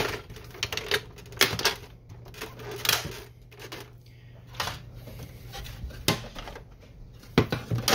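Plastic clicks and knocks from a Canon Pixma MG6820 printer's housing parts as they are snapped into place and handled. The sharp snaps come a second or so apart, with a cluster near the end.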